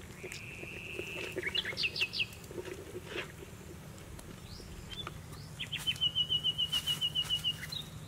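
Wild bird calls: a held high whistle, then a few quick down-slurred chirps, and later a fast, even trill of about eight notes a second lasting nearly two seconds.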